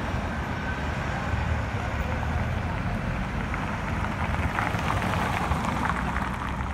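Road traffic passing close by: a semi-truck pulling a long flatbed trailer drives past with a steady low engine rumble, followed by a car, with tyre hiss rising about four and a half seconds in.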